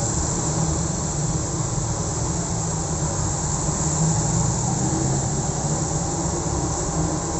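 Busy road traffic: motorcycles, minibuses and cars passing close by, a steady mix of engine hum and tyre noise.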